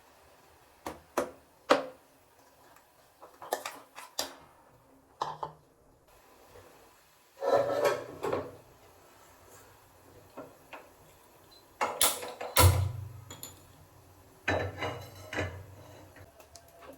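Scattered knocks and clatter of objects being handled and set down, in short irregular bursts, with the loudest strikes about twelve to thirteen seconds in.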